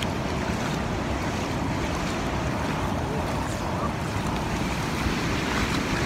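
Ocean surf washing steadily onto a sandy beach, with wind buffeting the microphone.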